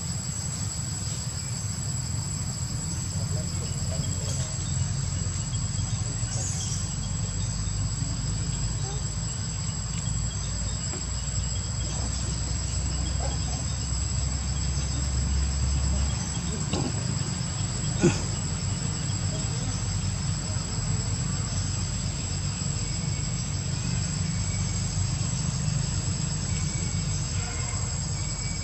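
Steady high-pitched drone of forest insects, with a low rumble underneath and a single sharp click a little past halfway.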